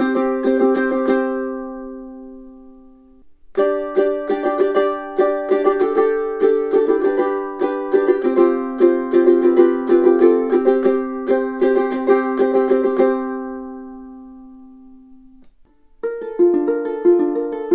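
All-solid koa concert ukulele (DJ Morgan) played solo with plucked chords and melody notes. A phrase rings out and fades about three seconds in. A new phrase runs from about three and a half to thirteen seconds and is left to ring away. Another starts near the end.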